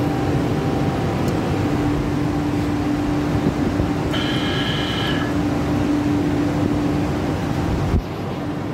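Glass machine's electric motors running with a steady hum and mechanical noise. A brief high whine sounds about four seconds in, and near the end a click is followed by a quieter, lower noise.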